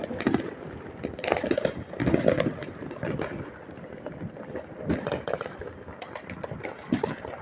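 Neighbourhood fireworks and firecrackers going off, a dense run of crackling pops that come in clusters, thickest about a second or two in and again around five and seven seconds in.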